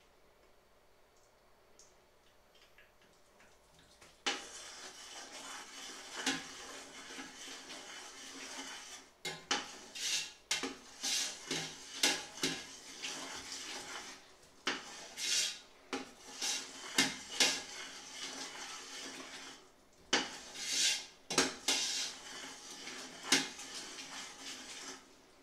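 Metal utensil scraping and clinking against a large stainless steel pot over a steady hiss, starting about four seconds in and stopping just before the end.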